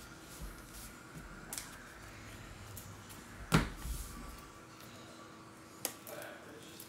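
Trading cards in rigid plastic holders clicking and tapping as they are handled and set down on the table, with one sharp click about halfway through and a lighter one near the end.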